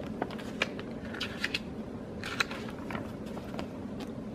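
A picture book's page being turned and handled: soft, scattered paper rustles and crinkles with a few faint clicks.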